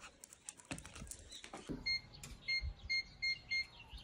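Electronic door-lock keypad beeping: a run of about six short, identical beeps a third of a second apart as a code is punched in, each with a soft tap, after a few light clicks.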